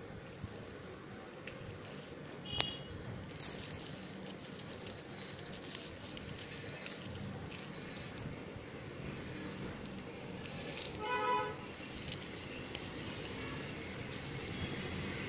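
Slate pencil pieces being crushed and crumbled between fingers on a plastic sheet: dry crunching and crackling with many small clicks and the crinkle of the plastic. A short pitched sound is heard about eleven seconds in.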